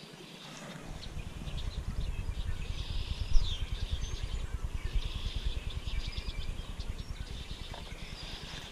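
Small birds chirping over a low, rumbling noise on the microphone that starts about a second in, with one sharp knock about three and a half seconds in.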